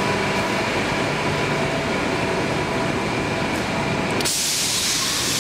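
Steady mechanical running noise with a rumble and several steady hum tones. About four seconds in it changes suddenly to a loud hiss.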